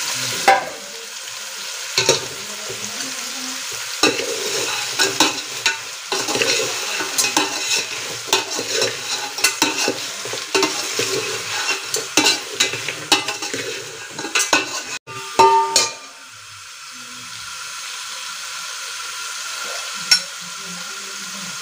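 Goat head meat sizzling as it fries in a metal pot, stirred with a metal ladle that scrapes and clinks against the pot again and again for most of the time. The stirring stops about three-quarters of the way through, leaving a steady, quieter sizzle with one more clink near the end.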